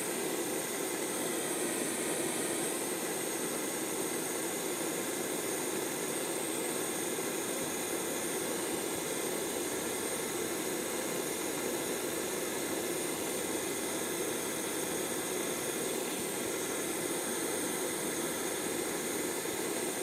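Gas torch flame hissing steadily as it heats a twisted copper wire splice for soldering.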